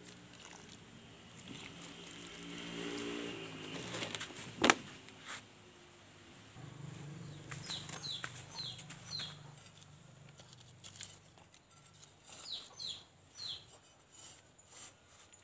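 Runs of short, falling bird chirps, one run about halfway through and another near the end, over a low hum. A single sharp knock comes about four and a half seconds in.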